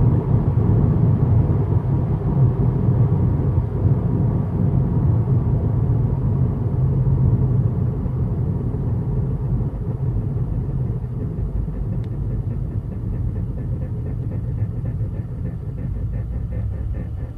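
Steady low rumble of a 2015 Subaru WRX driving along, heard from inside the cabin: road and engine noise, easing slightly toward the end.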